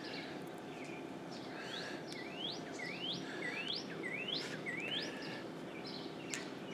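A songbird singing a run of about six quick rising chirps, a little over half a second apart, over steady outdoor background noise. A single sharp click comes near the end.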